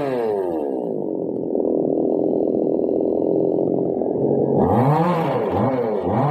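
Two-stroke chainsaw engine winding down from high revs to a steady idle. Near the end it is revved up and down repeatedly in quick rises and falls.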